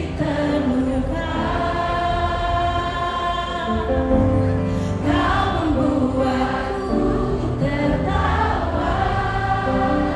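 Live pop concert heard from the audience: a woman singing into a microphone over a full band with bass, guitars and horns, with the crowd singing along.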